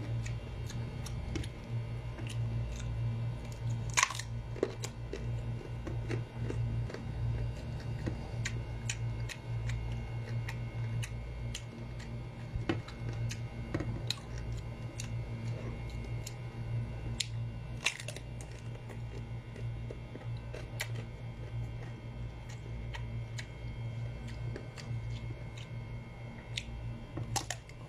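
Crisp biting and chewing of raw green mango slices, with short sharp crunches every second or two and a few louder ones, over a steady low hum.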